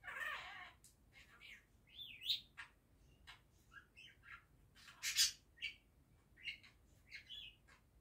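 Budgerigar chattering: a quick, irregular run of short chirps and warbling notes, some sliding up in pitch, broken by harsher scratchy squawks at the start and about five seconds in.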